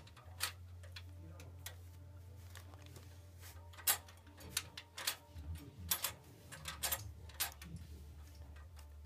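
Irregular small clicks and taps as a screw is turned out of the base of an electric radiator heater and the metal wheel-bracket parts are handled, with one sharper knock about four seconds in.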